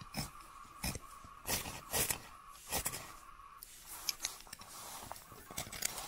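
Knife shaving split birch wood, carving tinder shavings: a series of irregular, sharp scraping strokes, spaced about half a second to a second apart.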